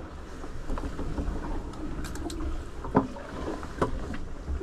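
Steady low rumble of a sailing yacht under way, wind and water on the hull heard from inside the cabin, with a few sharp clicks of a spoon against a metal pot. The loudest click comes about three seconds in.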